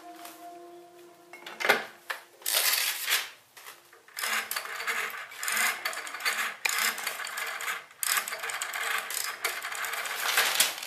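Black rotary telephone handled and dialled: a click and a clatter as the handset is picked up, then the dial wound round and released several times, its mechanism whirring and clicking back in three runs of digits.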